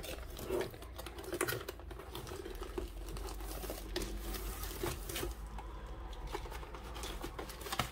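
A long cardboard box and the plastic-wrapped rolled canvas inside it being handled and slid out: irregular scraping, rustling and small taps of cardboard and plastic against a table.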